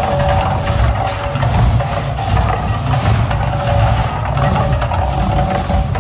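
Mirage volcano eruption show: a loud, continuous deep rumble with percussion-driven music from the show's sound system, with recurring sharp hits.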